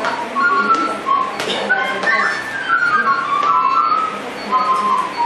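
Whistling: an irregular run of short high notes with a few sliding glides, over a steady low hum and a few light clicks.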